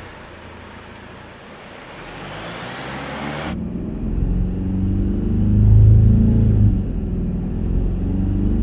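Mercedes E 220 CDI's four-cylinder diesel engine running and being revved, the revs rising and falling and loudest about six seconds in, after a steady hiss for the first three seconds or so. It runs without its droning vibration, its cracked rear transmission mount propped on rubber blocks as a test.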